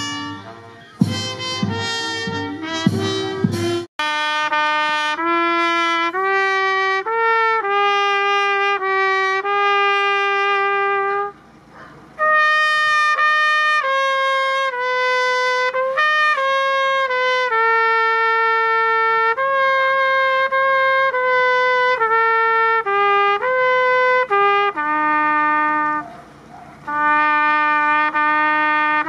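A few seconds of band music with strong regular beats cuts off abruptly. A solo trumpet then plays a slow call of long held notes, stepping between pitches, with two short pauses between phrases.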